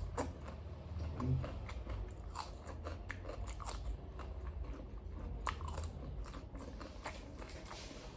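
A person chewing and biting into tandoori chicken close to the microphone: a run of small irregular clicks and crunches over a low steady hum.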